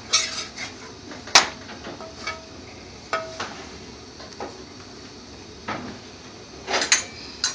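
A metal spatula and fork knocking, clinking and scraping on a flat tawa as the paratha is pressed and turned: a run of sharp clatters, some briefly ringing, the loudest about one and a half seconds in and a quick cluster near the end, over a steady low hiss.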